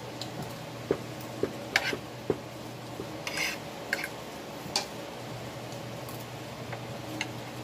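Metal spoon clinking and scraping against a plate while scooping vegetable filling onto a spring roll wrapper: a run of light, separate clinks over the first five seconds with a short scrape in the middle, and one more clink near the end.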